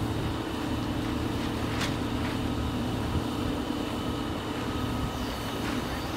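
A large engine running at a steady speed, a low, even mechanical drone from heavy lifting machinery.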